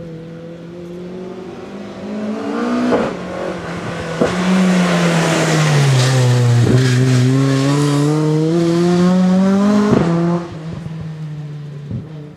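Rally car passing at speed through a bend: the engine note swells as it approaches, sinks as it slows for the corner about halfway through, then climbs again as it accelerates away, with several sharp cracks along the way. It fades quickly near the end, leaving a steady low hum.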